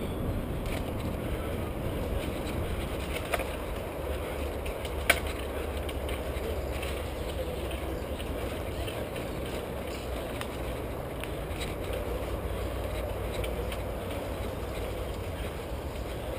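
Mountain bike riding along a dirt singletrack: a steady low rumble of tyres and wind on the microphone, with scattered rattling clicks and one sharp knock about five seconds in.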